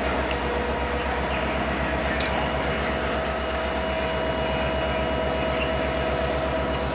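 Diesel locomotive of the Canadian Pacific Holiday Train running close by: a steady, fast low engine throb with a steady whine over it.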